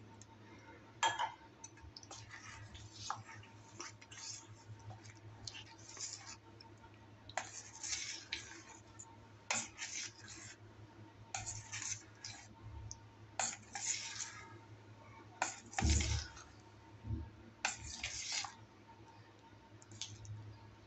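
Metal spoon stirring thick batter in a stainless steel bowl, scraping and clinking against the sides in irregular strokes, with one louder knock about three-quarters through.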